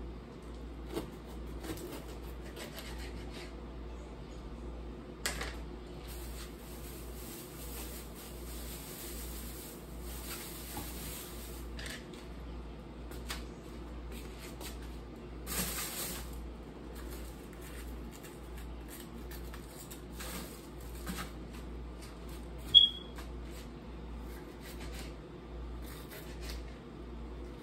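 Knife cutting a green bell pepper on a plastic cutting board: scattered soft taps and scrapes, with two brief rustles, over a steady low hum. Late on, a single short high chirp stands out as the loudest sound.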